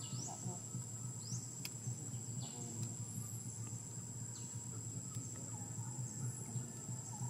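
Insects droning outdoors: a steady high-pitched whine runs throughout, with short sweeping chirps about once a second, over a low steady rumble.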